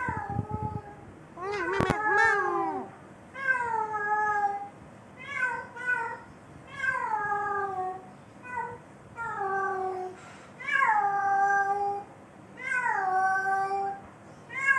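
Cat yowling over and over in long drawn-out calls, typical of a female in heat. There is about one call every one and a half seconds, each sliding down in pitch and then holding. The second call, near two seconds in, wavers.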